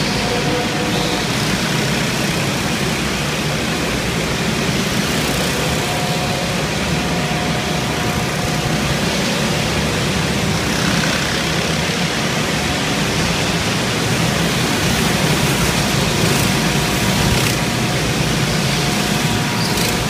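Several go-kart engines running together as the karts lap the track, a loud steady din with faint engine tones coming and going, inside a large hall.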